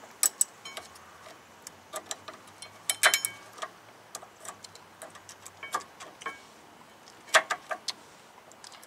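Irregular metal clicks and clinks as a steel-backed brake pad is worked into a caliper bracket that it does not want to seat in. The loudest clinks come about three seconds in and again about seven seconds in.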